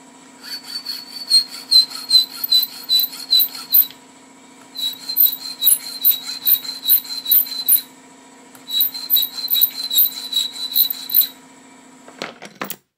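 Hand file stroking across the head of a bolt clamped in a bench vise, in three bouts of quick strokes about four a second, each stroke with a high squeal. This puts a flat on the bolt head. An air compressor hums steadily underneath, and a few clicks come near the end.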